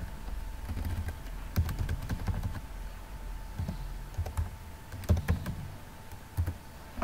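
Typing on a computer keyboard: irregular, unhurried keystrokes.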